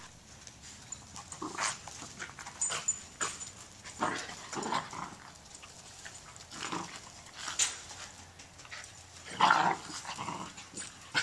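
A dog barking and whining in short bursts, the loudest call about two-thirds of the way in, with scattered sharp clicks between the calls.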